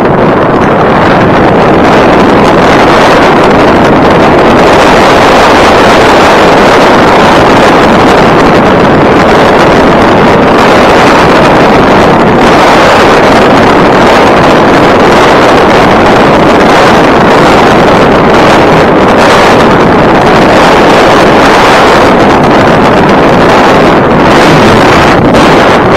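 Loud, steady wind noise buffeting the microphone of an ORDRO EP6 hands-free camcorder, a constant rushing roar with no pauses.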